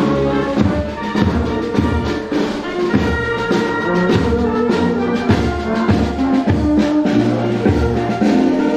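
Marching brass band playing in procession: sousaphones, trombones and other brass over a steady snare-drum beat.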